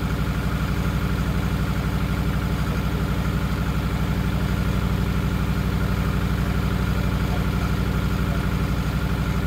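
Nissan Pulsar GTiR's SR20DET turbocharged four-cylinder engine idling steadily with an even, rapid pulse.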